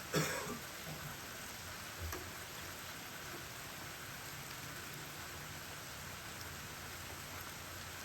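Steady rain falling, an even hiss throughout. There is a brief, loud sudden sound just after the start and a fainter one about two seconds in.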